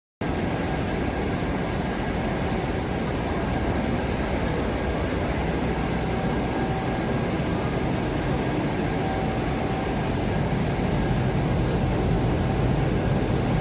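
Potato-processing line machinery running with a steady, even drone.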